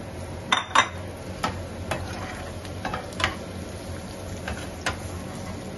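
A slotted spatula stirring diced zucchini and onion in a non-stick frying pan, tapping and scraping against the pan in irregular clicks, two sharp ones close together near the start, over a faint sizzle of the vegetables in oil.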